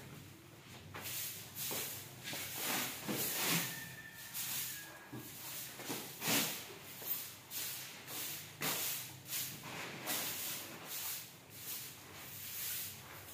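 Soft grass broom sweeping a stone-tiled floor, a dry swish with each stroke, about one or two strokes a second in an uneven rhythm, starting about a second in.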